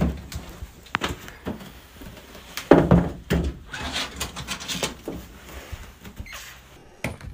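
A wooden cupboard door is pulled open with a thud, followed by scattered knocks, bumps and rustling as a cat is handled and lifted off a shelf inside the cupboard.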